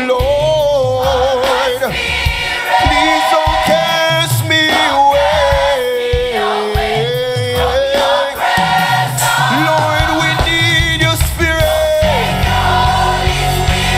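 Gospel choir singing a slow song in parts, with long held notes, over instrumental backing that grows fuller near the end.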